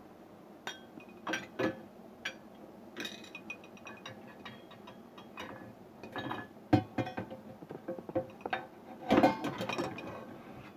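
Dishes and steel pots clinking and knocking together with short metallic rings as they are handled in an opened dishwasher. One sharp knock comes about two-thirds through, and a burst of clatter follows near the end.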